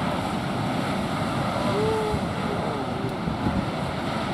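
Steady roar of breaking surf with wind buffeting the microphone.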